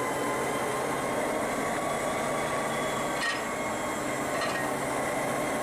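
BL-class diesel-electric locomotive BL32 idling beside a second locomotive, a steady engine drone with a constant whine from its fans and auxiliaries. Two faint clicks come about three and four and a half seconds in.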